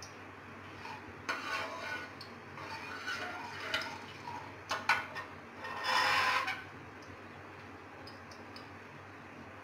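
Steel ladle stirring seeds in oil in a metal kadai, clinking and scraping against the pan in scattered strokes, with the longest, loudest scrape a little past halfway.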